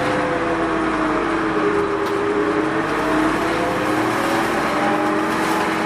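Mitsubishi Fuso Rosa minibus running on the road, heard from inside the cabin: a steady road and engine noise, with a whine that slowly sinks in pitch and then rises again as the bus changes speed.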